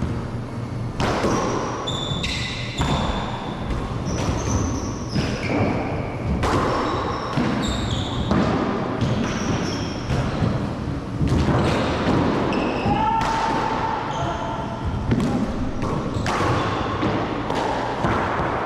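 Paddleball doubles rally in an enclosed court: the rubber ball cracks off paddles and walls again and again, each hit echoing, with sneakers squeaking on the hardwood floor in between.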